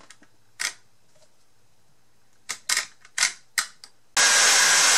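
Several sharp clicks, then about four seconds in the KitchenAid Professional 6-quart stand mixer's motor starts and runs steadily and loud: the old speed-control circuit board, once faulty, now works.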